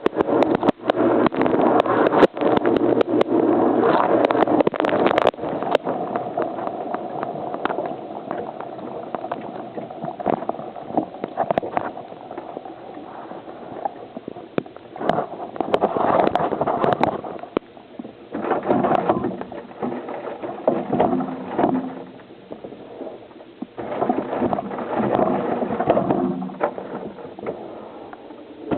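Dishwasher wash water spraying and splashing over the dishes, heard from inside the tub. The spray is loud for the first few seconds, then comes and goes in uneven surges.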